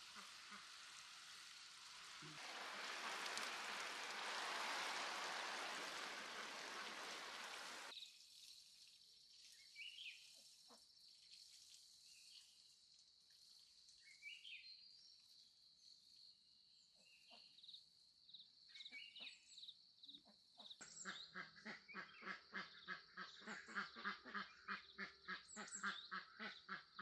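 A steady rush of noise that cuts off suddenly, then scattered short chirps over a thin high steady tone, then a fast run of repeated animal calls, several a second.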